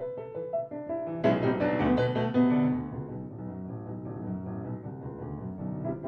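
Solo piano playing classical music. About a second in, a loud chord is struck and rings away over a couple of seconds, followed by softer, held low notes, with quicker notes coming back near the end.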